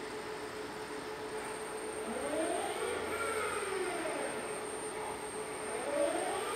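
Six-axis industrial robot arm's servo motors whining over a steady hum. The whine rises and falls in pitch twice as the arm speeds up and slows down through its moves.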